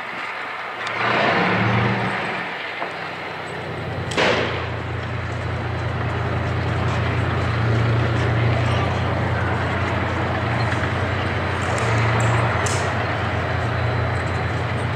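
A sharp crack about four seconds in, then the steady low drone of a heavy military vehicle's diesel engine running, with a rushing noise over it.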